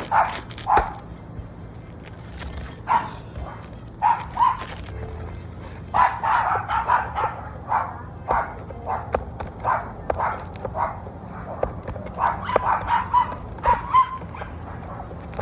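A dog barking and yipping over and over, in short single calls and quick runs.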